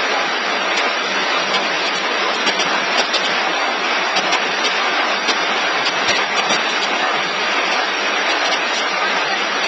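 Paper take-away box forming machine running: a steady, dense mechanical noise with faint scattered ticks.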